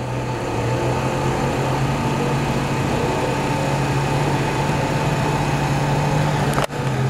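Steady engine drone with a strong low hum, broken by a brief dropout about six and a half seconds in.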